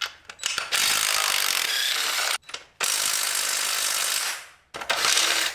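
Ratchet wrench clicking in three runs with short pauses between them, loosening bolts.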